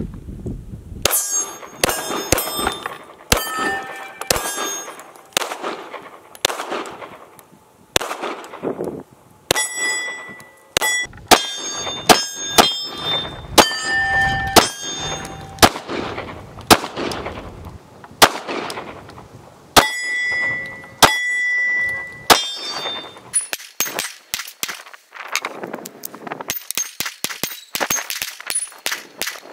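A string of 9mm pistol shots from a Glock 23 fitted with a 9mm conversion barrel, dozens in an uneven rhythm with short pauses. Many shots are followed by the ringing ping of hit steel targets. Every reloaded round, primed with small rifle primers, fires.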